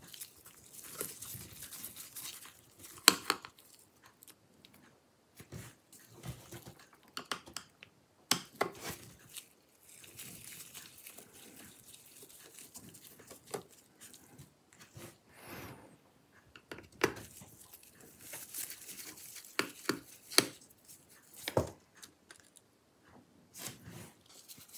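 Small screwdriver backing out screws from a laptop's metal SSD shield, with scattered light clicks and knocks among the rustling of gloved hands.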